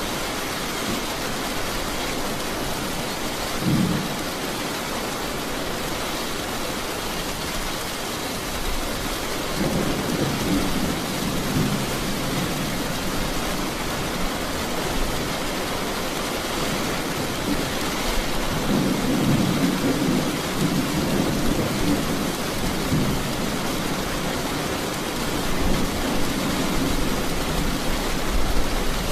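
Steady heavy rain with rolls of thunder: a short rumble about four seconds in, longer rumbling rolls around ten seconds and twenty seconds in, and more near the end.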